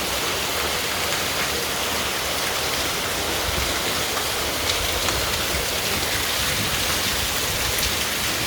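Heavy rain pouring down steadily, an even hiss with scattered small drop ticks.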